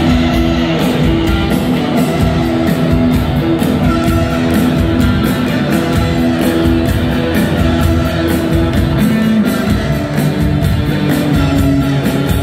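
Rock band playing loud and live in a hall, heard from the audience: an instrumental passage of electric guitar riffing over a steady drum beat, with no vocals yet.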